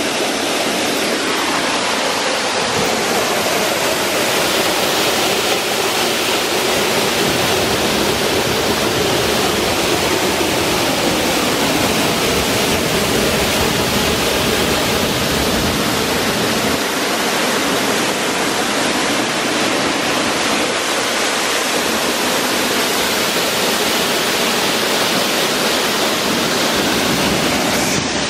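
Small waterfall pouring into a plunge pool: a loud, steady rushing of falling and splashing water.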